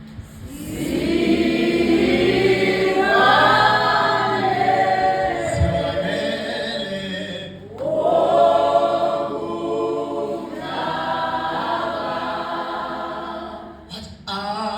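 Church choir or congregation singing a gospel chorus together, in two long phrases with a short break a little past halfway.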